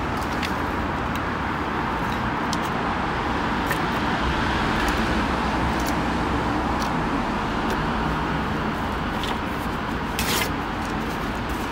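Campfire flaring up as freshly thrown wood catches: a steady rushing burn with scattered sharp crackles and pops, and a louder rush about ten seconds in.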